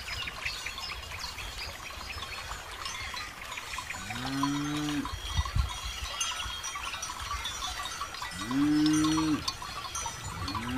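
Cattle mooing twice, each low call about a second long, rising and then falling away, over the light tinkling of cow bells. A third moo begins at the very end.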